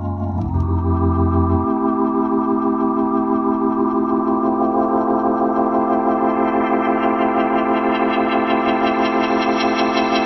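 1957 Hammond C3 tonewheel organ played through a Leslie 302c rotating speaker, holding one long chord with an even, pulsing waver from the spinning horn. The low bass note drops out a couple of seconds in, and the upper tones grow brighter around the middle.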